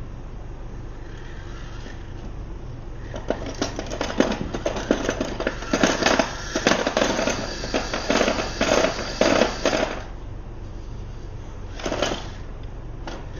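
Small RC crawler's electric motor and gears running in stop-start spurts with dense rattling clicks, then one short burst again near the end.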